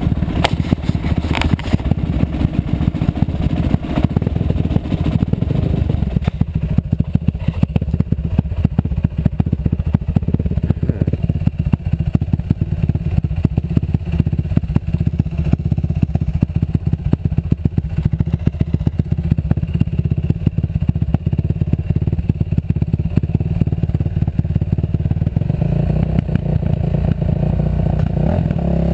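Dirt bike engine running at low speed on a rough, rutted trail, with the bike clattering and rattling over the bumps. Near the end the engine note becomes steadier.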